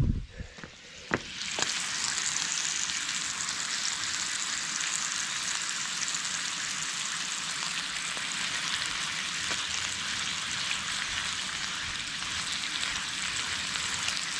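Food frying in a pan: a couple of knocks, then a steady sizzle that starts about a second and a half in and holds even.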